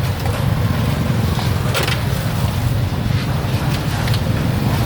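A steady low rumble with a few short clicks and knocks.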